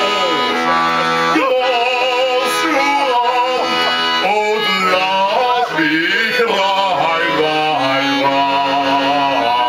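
Live vocal music: a singer with wide vibrato over instrumental accompaniment, ending on long held notes.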